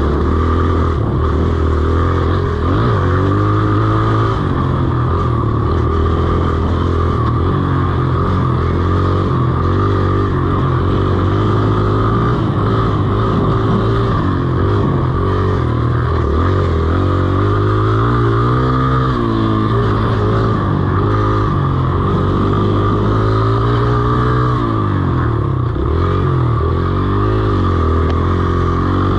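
Dirt bike engine running as the bike is ridden along a trail, its pitch rising and falling with the throttle.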